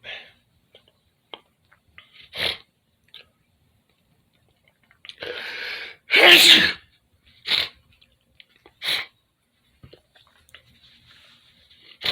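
A person sneezing: a drawn-out breath about five seconds in runs straight into one loud sneeze. Several shorter, sharp bursts of breath come before and after it.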